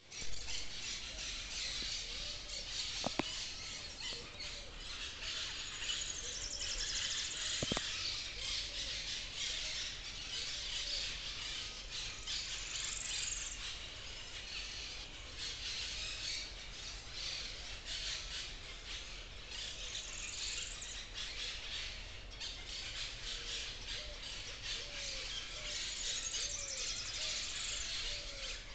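Forest ambience: a steady, dense chorus of insects with several birds singing and calling throughout, including repeated short low calls. Two sharp clicks in the first eight seconds.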